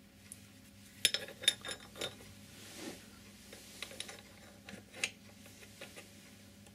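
Quiet, scattered clicks and light metallic clinks of a motorcycle drive chain and a DID chain riveting tool being handled as the tool is fitted over a link, with a cluster of taps about a second in and a few more near the end.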